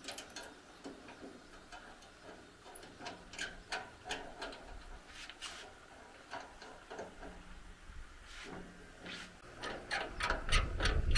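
Light metal clicks and taps as hands work a rusty bolt and fittings on the cast-iron housing of an old rice grain separator. The clicks come quicker near the end, over a low rumble.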